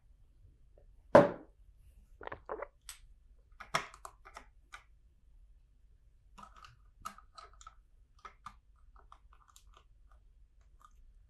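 Plastic LEGO bricks being handled: a loud clatter about a second in, then a run of rustling clicks and lighter taps as pieces are picked out and pressed together.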